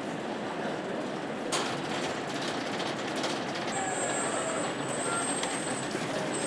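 Engine production-line machinery running with a steady mechanical din. A sharp clack comes about a second and a half in, and a thin, high steady whine starts a little past halfway and breaks off briefly near the end.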